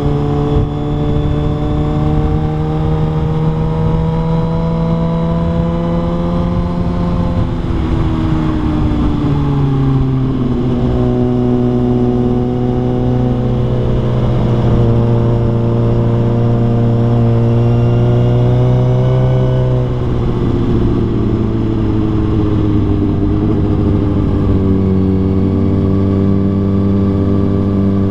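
Motorcycle engine running under way, its note climbing slowly and then dropping back, about a third of the way in and again about two-thirds in.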